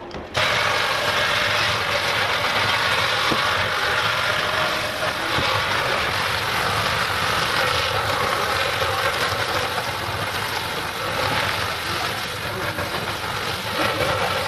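Steady loud rush of air driven into a charcoal fire in a clay drum oven, with a low hum underneath; it starts suddenly about half a second in.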